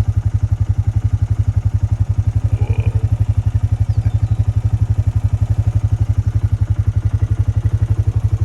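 Small vehicle's engine idling steadily, with a fast, even low throb.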